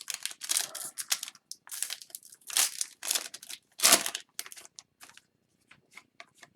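Foil wrapper of a hockey card pack crinkling and tearing open, a run of rustles with a sharp loud rip about four seconds in, then light ticks as the cards are handled.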